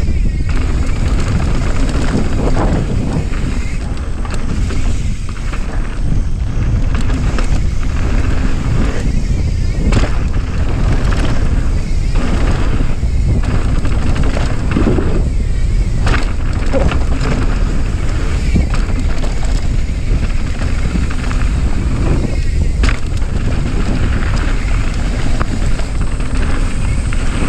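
Mountain bike riding fast down a dirt trail: a steady rumble of wind on the microphone and tyres rolling on packed dirt, with scattered short knocks and rattles from the bike over bumps and landings.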